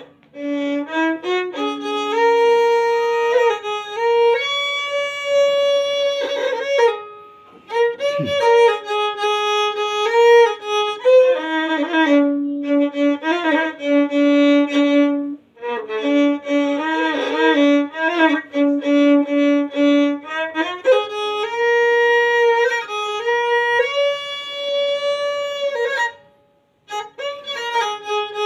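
A violin bowed in a simple melody of held notes, played as practice, with short breaks about seven, fifteen and twenty-six seconds in.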